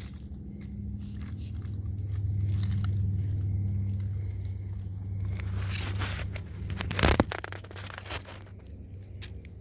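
Rustling, crunching and scraping from someone moving about and handling things close to the microphone, over a steady low hum. A louder crunch comes about seven seconds in.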